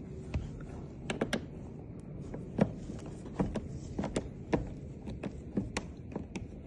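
Irregular sharp clicks and taps of a screwdriver working a screw loose on a door's security chain.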